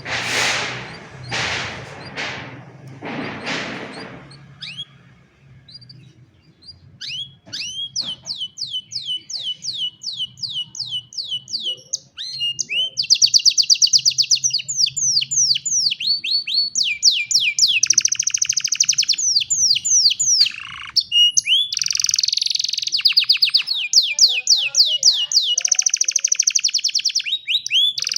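Domestic canary singing a long song of rapid trills and rolls, fast repeated high notes in phrases that run one into the next. The song builds after about seven seconds. In the first four seconds there are four short rushing noises.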